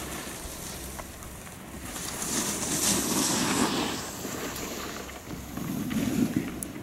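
Wind buffeting the microphone outdoors, a steady rushing noise that swells in two gusts, the first about two seconds in and the second near the end.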